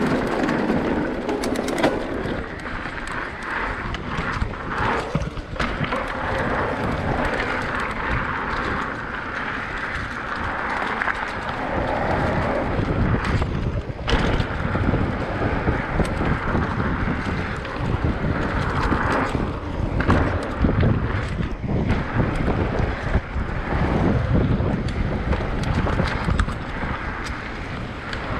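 Wind buffeting the microphone over the rolling noise of mountain bike tyres on dirt and then paved trail, with scattered clicks and knocks throughout.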